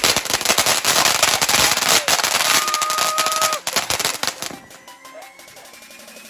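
Firework crackling and popping in a dense rapid stream, then dying away about four and a half seconds in. A short steady whistle sounds about halfway through.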